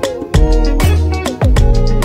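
Background music with a steady beat, about two beats a second, over a bass line and pitched melody notes.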